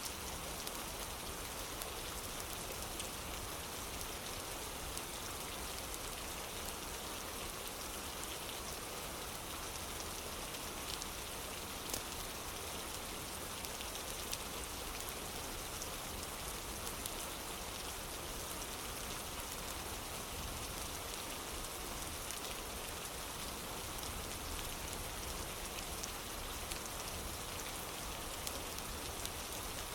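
Steady rain falling on a wooden porch, an even hiss scattered with small sharp ticks, one of them louder about twelve seconds in.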